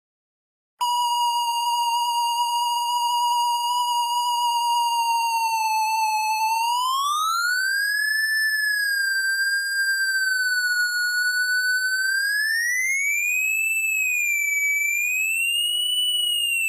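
A 2.5–4.5 MHz SDR signal detector's audio tone: a steady whistle that starts about a second in, then rises in pitch after about six seconds and swings up and down. The rising pitch marks increasing interference picked up from overhead phone/xDSL lines.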